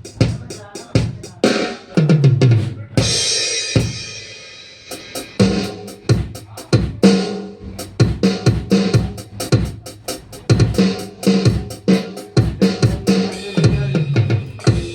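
Ddrum DDA50 electronic drum kit sounds playing a beat of kick, snare and tom hits, with a crash cymbal ringing out about three seconds in and deep toms falling in pitch about two seconds in and again near the end.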